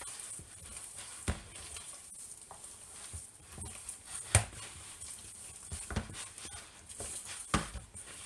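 Hands kneading and squeezing a wet ground-meat and tapioca-flour mixture in a plastic bowl: soft squelching of the meat, with four sharper knocks of the hand against the bowl, the loudest about halfway through.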